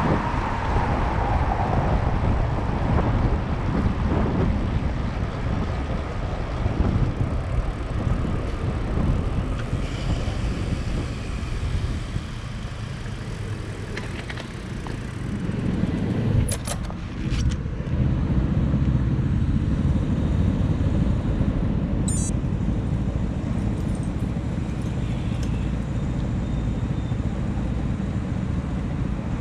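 City street traffic heard from a bicycle-mounted camera: a low rumble of wind on the microphone and nearby cars, steadier in the second half as cars run close alongside at a junction, with a few sharp clicks about halfway through.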